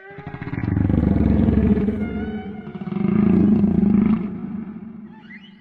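Whale calls: two long, low, rough moans. Each swells up and fades, the first in the first two seconds and the second from about three to four seconds in.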